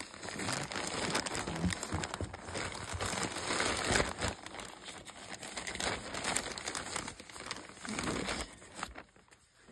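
Plastic mailer bag crinkling and rustling as it is handled and opened. Loudest about four seconds in, fading near the end.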